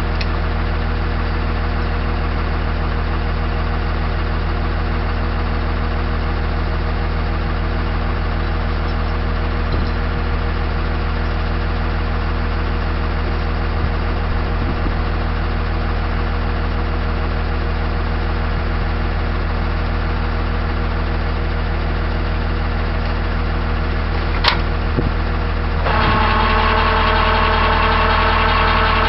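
Tow truck engine idling steadily, with one sharp click about 24 seconds in. About 26 seconds in the engine speeds up and holds a higher, steady speed, throttled up as the operator works the winch control levers.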